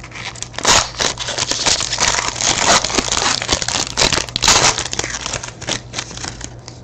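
Crinkling and crackling of a foil trading-card pack wrapper as it is handled and opened, with busy bursts about a second in and again near the middle.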